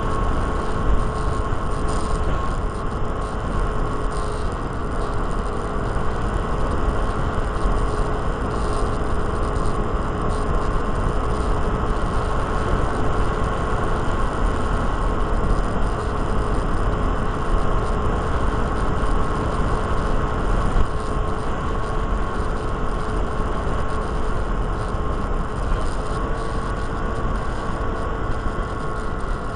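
Electric motor and propeller of a small RC foam plane running steadily, heard from its onboard camera, a constant high tone over heavy wind rush on the microphone.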